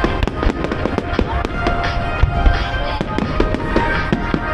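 Aerial fireworks shells bursting: a rapid, continuous run of bangs and crackles, with music playing underneath.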